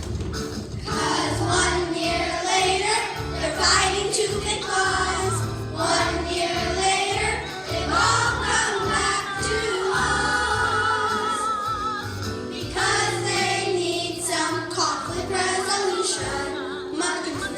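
Children singing together over musical accompaniment with a steady bass line. A long wavering note is held about ten seconds in.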